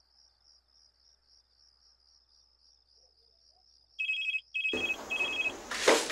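A phone's electronic ringtone starts about four seconds in, short high two-tone beeps repeating in quick bursts, with a loud hissing, rustling noise starting just after it. Before the ring, near silence with a faint steady high chirring of crickets.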